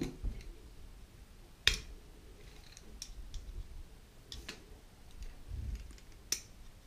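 Small plastic clicks and taps as a screwdriver tip pushes wires into place inside the plastic housing of a LEGO train motor, with light handling noise. A few separate sharp clicks, the loudest a little under two seconds in.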